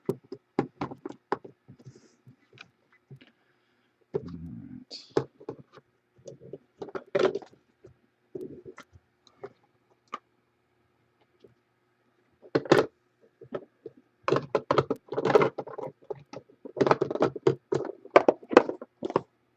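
Hands handling and opening a trading-card box: scattered clicks, knocks and rustling, in clusters that get busier in the second half.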